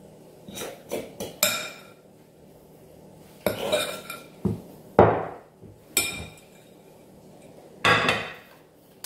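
Metal spoon scraping and clinking against a glass mixing bowl as stiff dumpling dough is scraped out, in a string of short, sudden scrapes and knocks.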